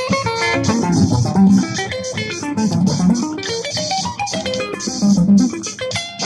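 Guitar playing a funky, bluesy jam, with plucked note runs over a moving low line.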